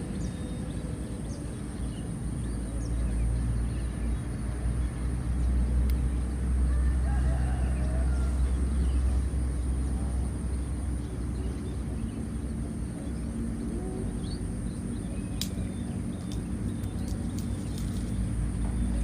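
Steady low rumble with a constant high-pitched drone above it and a few faint chirps, with a few light clicks near the end.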